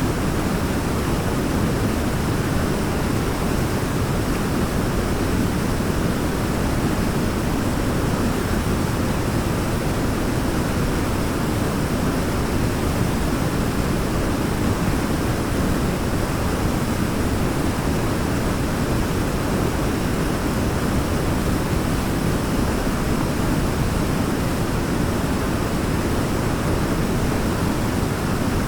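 Waterfall: a steady, unbroken rush of falling water, deep and full rather than hissy.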